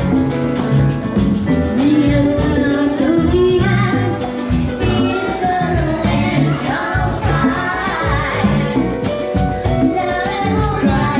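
Live salsa band playing, with a singer's voice over a steady Latin dance rhythm.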